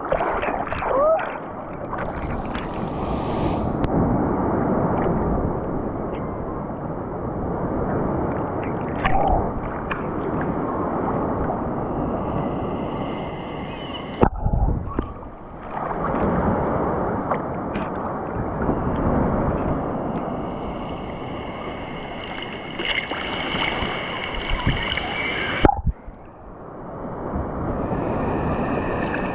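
Rough sea surf: waves surging and breaking in a steady wash that swells and eases every few seconds, with water sloshing and splashing close by.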